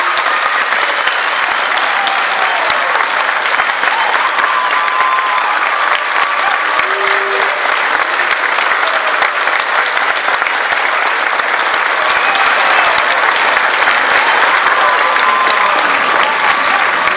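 Large crowd of students and staff clapping steadily and loudly, with scattered voices calling out among the applause.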